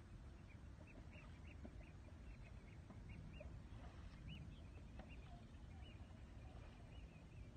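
Faint small waves lapping on a pebble shore under birds calling, with short, high calls repeating several times a second, thickest in the first half.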